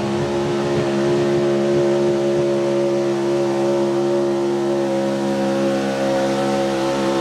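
Light pro stock pulling tractor's engine running loud and steady, holding a nearly constant pitch.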